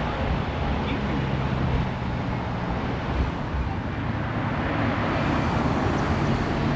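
Street traffic: a motor vehicle's engine hum with road noise, swelling somewhat about five seconds in.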